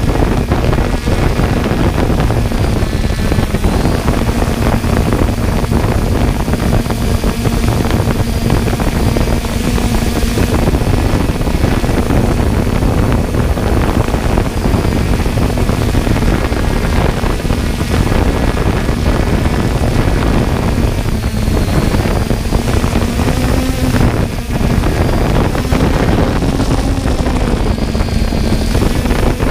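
3DR Solo quadcopter's electric motors and propellers humming steadily, the pitch wavering a little as it manoeuvres, over a rough rushing noise of wind on the microphone.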